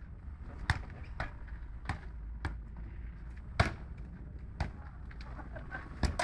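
Irregular sharp clacks and knocks, about seven in six seconds, from a street-hockey game: sticks striking the ball and each other.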